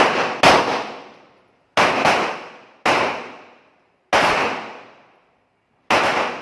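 Handgun shots: about six sharp reports at irregular spacing, each followed by a long fading echo.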